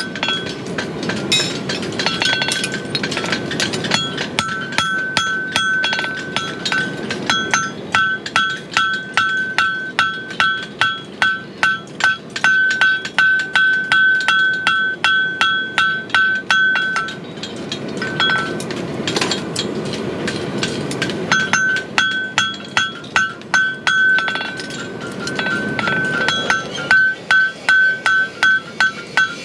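Farrier's hammer striking a punch into a hot steel horseshoe on an anvil, punching nail holes: steady rhythmic blows about two to three a second, each with a bright anvil ring, with a few short pauses past the middle.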